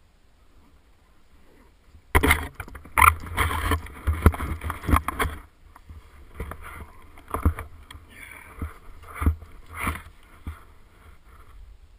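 Powder snow crunching and scraping right at the camera as a snowboarder flounders in deep snow and brushes it away with gloved hands. A dense run of loud rough scrapes and knocks begins about two seconds in, then thins to scattered scrapes and knocks.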